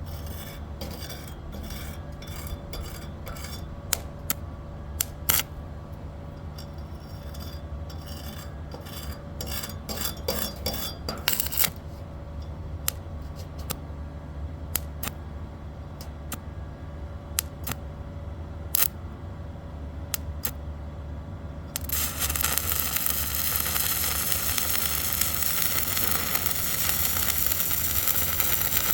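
Stick (arc) welding: a steady low hum from the welding machine with scattered sharp clicks and short crackles. About two-thirds of the way through, the arc catches and crackles and sizzles steadily and louder.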